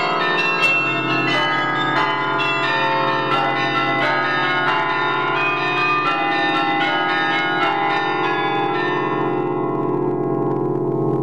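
Carillon bells played from the baton keyboard: a quick run of struck bell notes, each ringing on with its overtones, that thins out about eight seconds in as the last notes are left to ring and die away.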